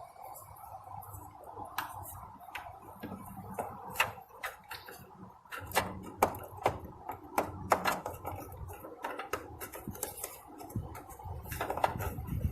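Irregular plastic clicks and taps of a turn signal bulb socket being jiggled against its slot in a Chrysler Town and Country minivan's front headlamp housing, the socket not seating easily.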